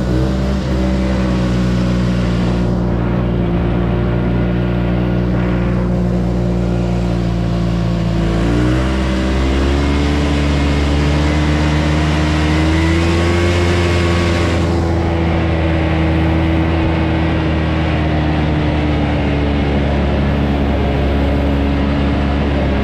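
Yamaha Bravo two-stroke snowmobile engine running at a steady cruising speed under way. About a third of the way in, the engine note dips briefly, then climbs back to a slightly higher steady pitch.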